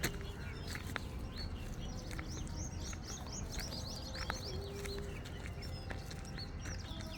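Small birds chirping in quick runs of short, high calls, busiest in the middle. A steady low rumble sits underneath, with a few sharp clicks.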